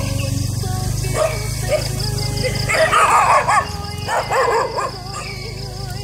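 A dog barking in two loud bouts, about three and four and a half seconds in, over the steady low running of a motorbike engine.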